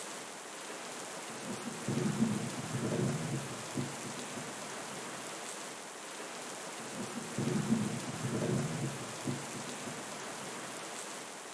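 Steady rain hiss with low rumbles of thunder, once about two seconds in and again about seven seconds in.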